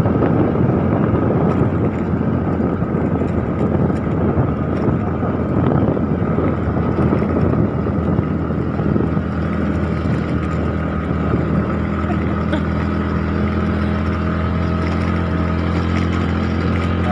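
Motorbike engine running steadily while riding, with wind buffeting the microphone. The wind eases about halfway through, leaving the engine's steady note plainer.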